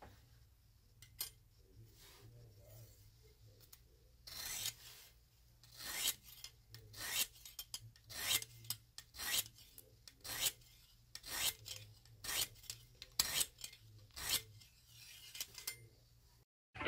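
Lansky sharpening hone scraped along the edge of a folding knife held in the Lansky clamp, stone rasping on steel. Faint at first, then from about four seconds in a run of quick, even strokes, about two a second.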